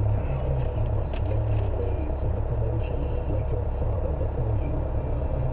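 A car's engine idling, a steady low rumble heard from inside the cabin.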